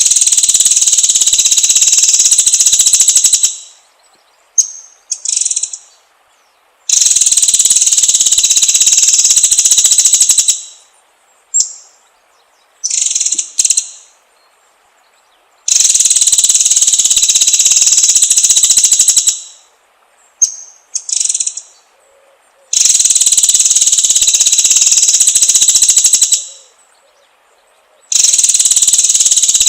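Songbird tutor recording: long, very fast, buzzy high trills of about three and a half seconds each, alternating with short chirps and brief pauses, in an evenly repeating loop.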